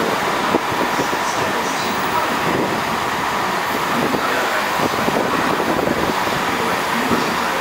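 Freight train wagons rolling past at speed. The steady rush and rumble of steel wheels on rails is broken by many small irregular clicks, with a faint steady whine above it.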